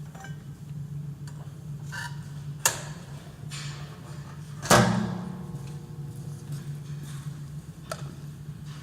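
Pillar drill running with a steady low hum, with a few metallic knocks; the loudest, about halfway through, rings on briefly.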